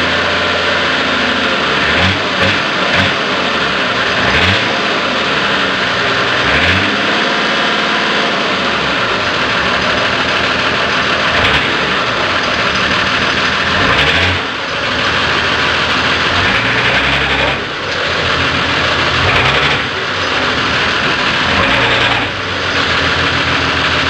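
Nissan Patrol diesel engine running with a terrible sound, revved up and down several times. The fault is a diesel fuel line connected to the wrong injector.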